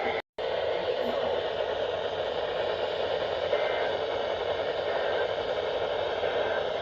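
Weather radio receiver putting out a steady hiss of static between broadcasts, with a brief dropout to silence just after it begins.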